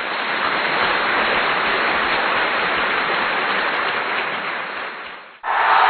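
Recorded applause, a dense even clapping, easing off slightly before it cuts out about five and a half seconds in; a louder cheering crowd starts straight after.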